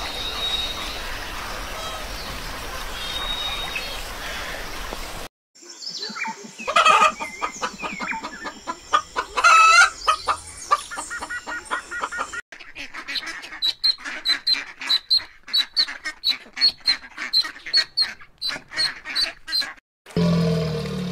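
Domestic chickens calling, with loud rising and falling calls from the rooster and hen, followed by a long run of short repeated bird calls at about two or three a second. Before them is a few seconds of steady background noise with faint high chirps, and a brief low sound begins near the end.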